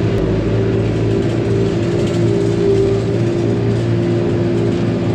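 Engine of a farm machine running steadily at high revs, as when scraping manure in a barn.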